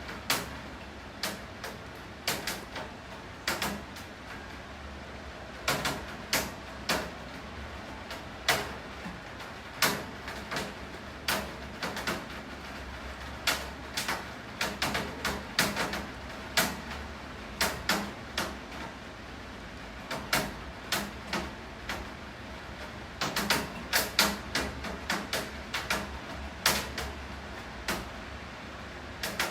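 Steady rain with heavy drops or drips knocking irregularly on a hard surface, several sharp taps a second.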